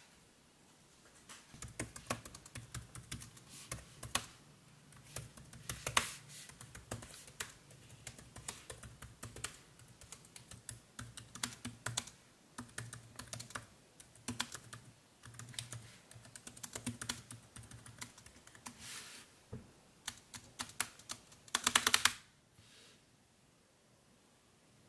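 Typing on a laptop keyboard: irregular key clicks for about twenty seconds, ending in a quick, louder flurry of keystrokes, then the typing stops.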